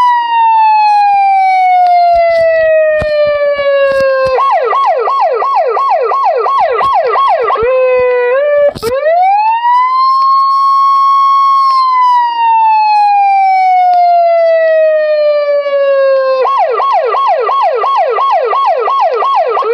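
Electronic police siren alternating between a slow wail and a fast yelp of about three sweeps a second. It starts with a long falling wail, switches to the yelp, and restarts with a click about nine seconds in. It then rises and holds, falls slowly again and goes back to the yelp near the end.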